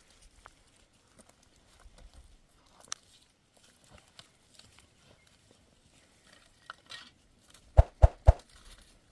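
Faint scattered clicks and rustles, then three sharp knocks in quick succession near the end.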